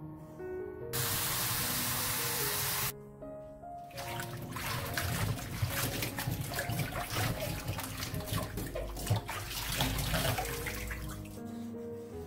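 Hands swishing and rubbing a bunch of peeled butterbur stems in a steel bowl of water, with irregular splashing for several seconds. It is preceded by about two seconds of a steady rush, like tap water running into the bowl. Soft background music plays throughout.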